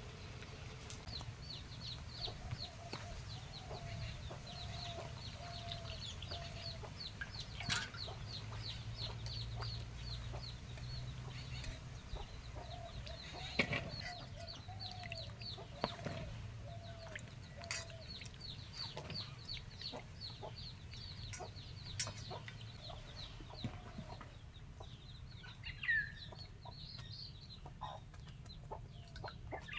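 Domestic chickens clucking, over a fast, high chirping repeated several times a second that stops about four-fifths of the way through. A few sharp knocks come through it.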